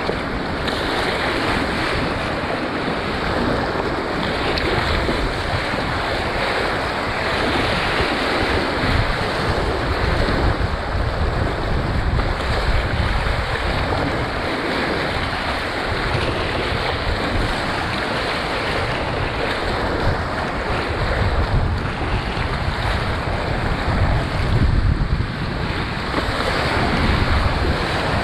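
Whitewater rapids rushing and breaking around a kayak's hull, heard from the cockpit at water level as a loud, steady roar of churning water. Gusts of wind buffet the microphone underneath.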